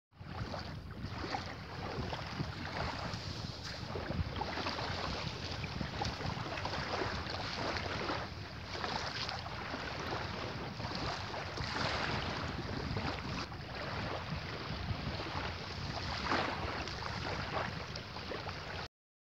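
Small waves washing onto a shore with wind on the microphone: a steady rushing that swells and eases now and then, cutting off abruptly near the end.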